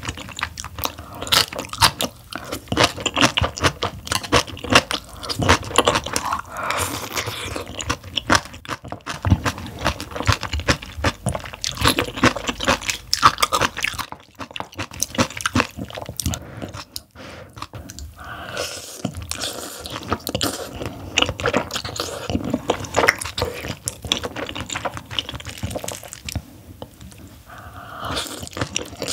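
Close-miked eating: continuous chewing with crisp crunching, the crunch of napa cabbage kimchi, eaten along with noodles, with a couple of brief pauses about halfway through.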